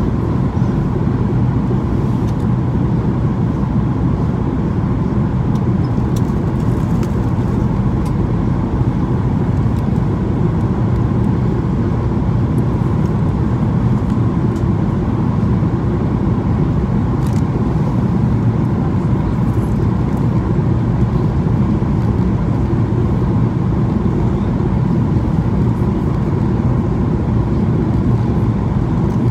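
Steady cabin roar inside a Boeing 737-800 descending on approach: its CFM56 turbofan engines and the airflow past the fuselage, heard from a window seat over the wing, even and unchanging, with a faint steady tone above the low rumble.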